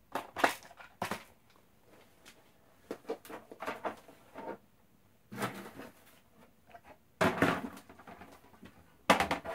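Handling noise from a reassembled Xbox One disc drive in its metal case: scattered clicks and knocks as it is moved on a table, and a longer rustle about seven seconds in as the drive is picked up.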